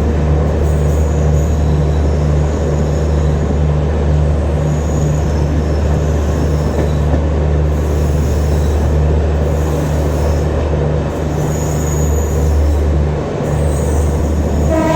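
Express passenger train running at speed, heard from inside a coach: a steady low drone from the diesel generator set of the end-on-generation (EOG) power car just ahead, over the rumble of wheels on rail.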